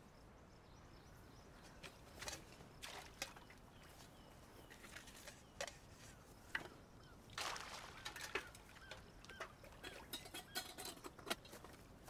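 Faint outdoor background with scattered short rustles and knocks, a few at first and busier in the second half.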